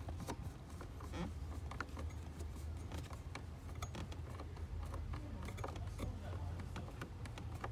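Hand screwdriver tightening screws into a plastic A/C evaporator housing: irregular small clicks and scrapes of the tool on the screws and plastic, over a steady low hum.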